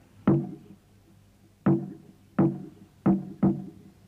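Drum struck five times in an uneven beat, the last two close together; each stroke is a sharp hit with a short, low pitched ring.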